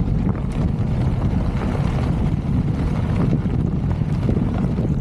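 Wind buffeting the microphone of a camera on a moving mountain bike, over the steady rumble of knobby tyres rolling on dry gravelly sand, with a few small clicks and rattles.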